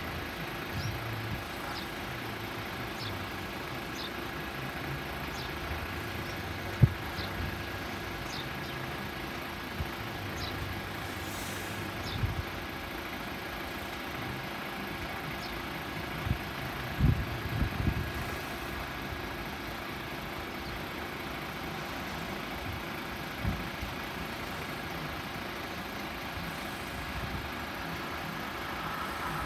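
Steady drone of an idling engine, with a few short knocks and thumps along the way.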